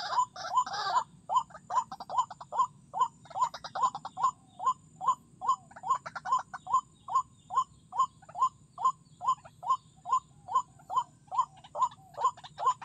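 White-breasted waterhen calling: a brief jumble of harsher calls at the start, then a steady, even series of short 'kruak' notes, about three a second.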